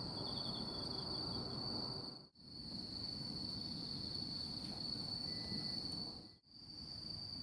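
Night insects, crickets, calling in a steady, continuous high trill over a low grainy background noise; the sound drops out briefly twice.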